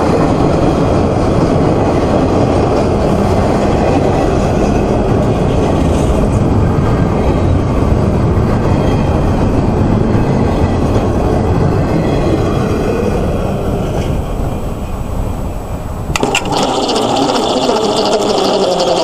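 Double-stack intermodal freight train's well cars rolling past, a steady loud rumble of steel wheels on rail that fades as the end of the train goes by. About three seconds before the end a different, brighter steady sound starts abruptly.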